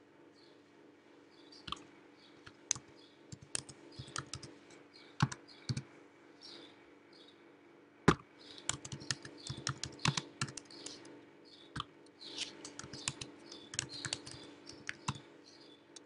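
Typing on a computer keyboard: scattered keystrokes at first, then quicker runs of keys in the second half, with one sharp louder click about halfway through. A faint steady low hum runs underneath.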